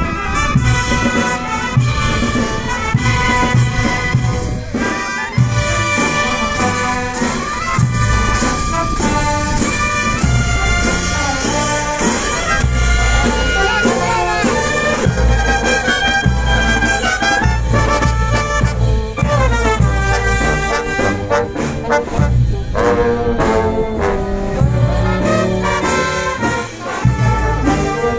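Brass band with sousaphones, saxophones, bass drum and cymbals playing a lively tune over a steady drum beat, with melody lines moving up and down throughout.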